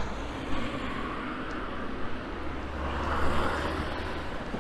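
A car passing on the road alongside, its noise swelling and fading about three seconds in, over a steady low wind rumble on the microphone of a moving e-bike.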